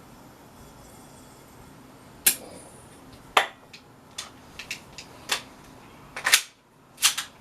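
TTI Pit Viper green-gas blowback airsoft pistol being handled and test-fired: scattered sharp clicks, then near the end a few loud, sharp snaps of it firing with the slide cycling back.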